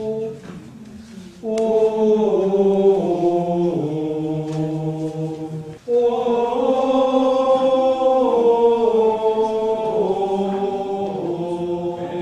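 Choir singing in sustained, slow-moving chords, phrase by phrase. The singing drops away briefly about half a second in, resumes at about a second and a half, and breaks for a breath just before six seconds before the next phrase.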